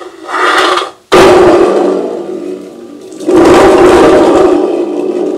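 A thunder tube (spring drum) being shaken, giving thunder-like rumbles: a short burst at the start, then two loud rumbles that start suddenly about one and three seconds in, each trailing off slowly.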